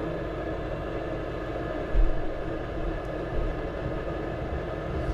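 Steady mechanical running noise, with a single thump about two seconds in.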